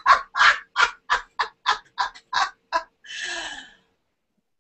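A person laughing: a quick run of about a dozen short bursts of laughter, about four a second and growing weaker, ending in a long breathy wheeze about three seconds in.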